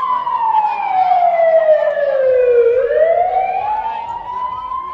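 A siren-like wailing tone that slides down about an octave over nearly three seconds, then rises back up and holds.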